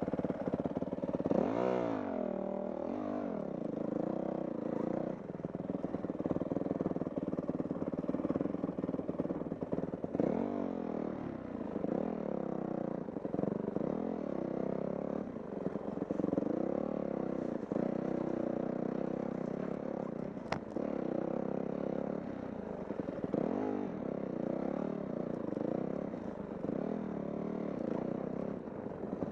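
Dirt bike engine running on a trail, its revs rising and falling again and again as the throttle is worked. There is one sharp click about twenty seconds in.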